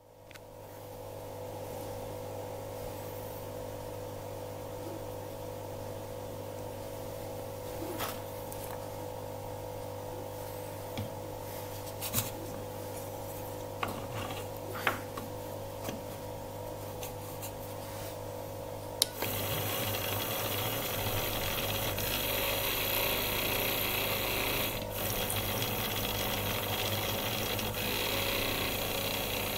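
Small bench machine for restoring the sealing end of a Bosch common-rail piezo valve pin: a steady hum with a few sharp clicks and knocks as its holder is fitted by hand, then about two-thirds of the way in the machine starts and runs with a louder, steady mechanical noise.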